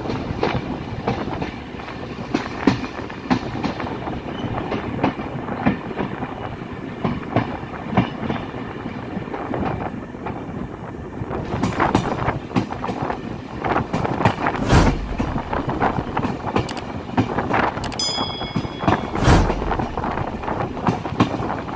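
A passenger train running over the track, its wheels rattling and knocking steadily over rail joints and points, heard from an open carriage window. A short high-pitched squeal comes late on, and there are two heavy thumps near the end.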